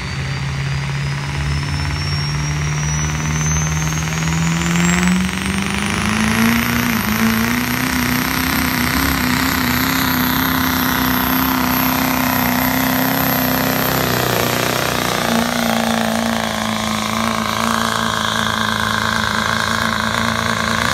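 Duramax 6.6-litre V8 turbodiesel pickup pulling a weight-transfer sled at full throttle: the engine note climbs over the first six or seven seconds, then holds high under heavy load, easing slightly about two-thirds of the way through. A high turbo whistle rises with it and then holds steady.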